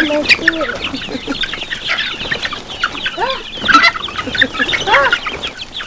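A large flock of young chickens clucking and peeping all at once: a dense chatter of many short high peeps over lower, drawn-out calls.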